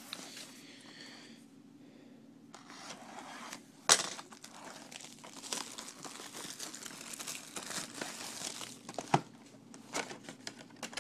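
Trading-card pack wrappers crinkling and tearing as packs are opened by hand, with a sharp snap about four seconds in.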